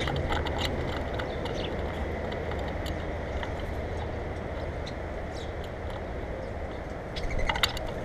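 Grackles and a starling feeding on a seed-heaped platform feeder right at the microphone: scattered pecking taps and clicks of beaks and feet on the seed and wire grid, with a louder cluster of taps and scrapes near the end. A steady low rumble runs underneath.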